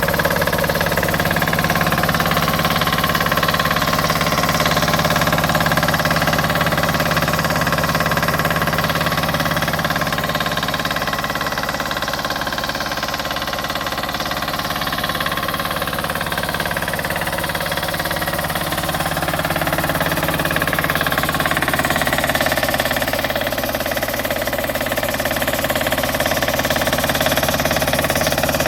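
Campagnola 650 diesel motor compressor running steadily.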